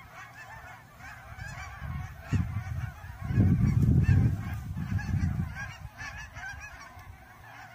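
A large flock of geese flying overhead, many birds honking at once in a continuous overlapping chorus. A low rumble comes over it from about two to five seconds in, and is loudest near the middle.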